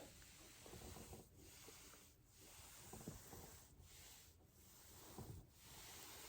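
Faint rubbing of a body and clothing on a foam roller, in soft strokes broken by several short pauses.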